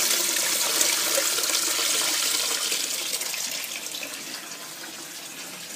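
Tap water running through a hose into a plastic basin of uncooked rice, splashing as the rice is rinsed. It grows gradually quieter after about three seconds.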